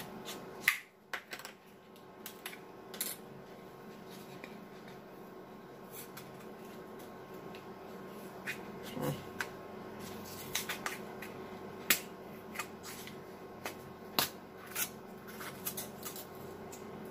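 Spice containers being handled by hand: an irregular string of sharp clicks and taps from caps and lids opening and closing and bottles knocking.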